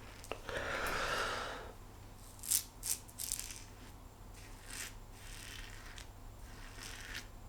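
Safety razor strokes scraping through stubble on the face: a few short, scratchy rasps, the two loudest about two and a half and three seconds in, with fainter strokes later.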